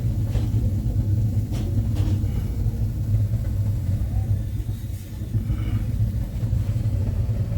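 A steady, low machine drone running at an even pitch, with a few faint knocks over it.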